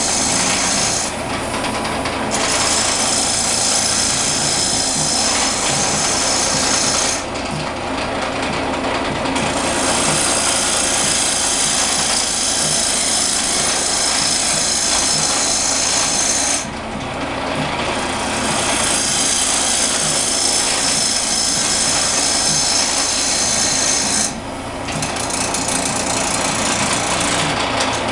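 Wood lathe running while a turning tool cuts down the spinning wooden walking-cane shaft, a loud continuous scraping hiss over the steady hum of the lathe. The cutting noise drops away briefly about four times as the tool comes off the wood, the lathe still running.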